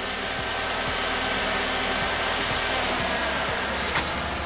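Nissan Qashqai 1.6 engine idling steadily with its Jatco JF015 CVT in drive and the brake held, running with no abnormal noise after the repair. A single short click near the end.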